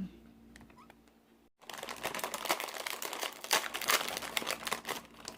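Plastic wrapper of a seaweed snack crinkling as it is handled. It starts about a second and a half in as a dense crackle of many small clicks, after a quiet start.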